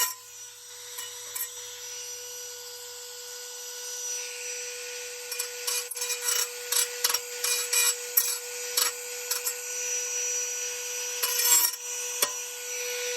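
Small electric grinder running with a steady high whine while it grinds the rough cut edge of a rusty steel bracket smooth. The rasping comes and goes as the bit touches the metal, with scattered ticks and scrapes.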